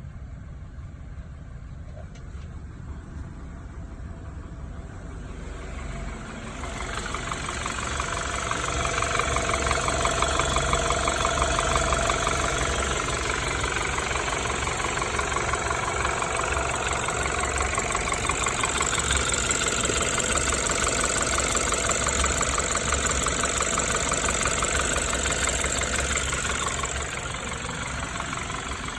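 BMW N20B20 turbocharged four-cylinder engine running with a rattle after engine damage. The rattle swells in about six seconds in, holds steady, and eases near the end.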